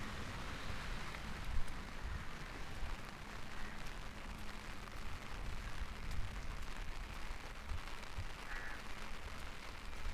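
Steady rain falling, with faint scattered drop ticks over a low rumble.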